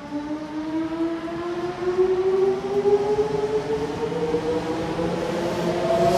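Electric commuter train's inverter-driven traction motors whining as it pulls away, a multi-note tone rising slowly and steadily in pitch and growing louder as the train gathers speed.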